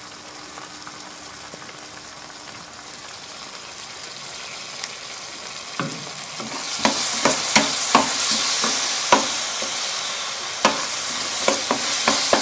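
Spice paste and petai frying in a pan, with tomato sauce and sweet soy sauce added. A soft sizzle swells louder about six and a half seconds in, broken by sharp clicks and scrapes of a spatula stirring against the pan.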